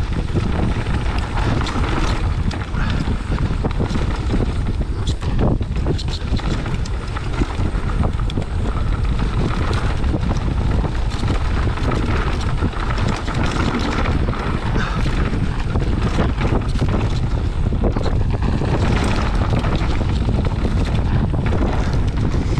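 Wind buffeting the microphone of a camera riding on a mountain bike on a dirt trail, a steady low rumble. Frequent small knocks and rattles come from the bike jolting over the rough ground.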